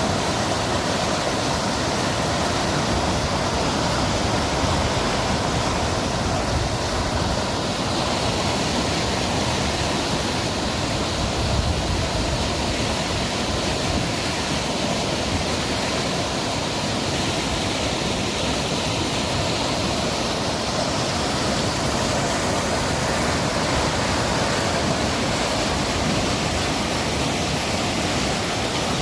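Steady rushing of running water, an even unbroken roar.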